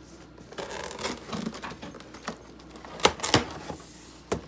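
Packing tape being peeled off a cardboard shipping box with a rasping tear, then the box's cardboard flaps being pulled open with a few sharp knocks and crackles.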